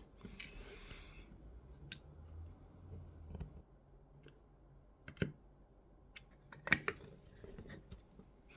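Light handling of small 3D-printed plastic parts: scattered sharp clicks and taps, the loudest a quick pair near the two-thirds mark.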